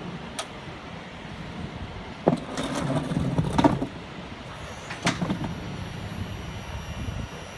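Metal tail lift platform being folded up by hand: a sharp clank about two seconds in, a second or so of rattling and clattering as it swings up, and another clank about five seconds in as it settles upright. A steady low hum runs underneath.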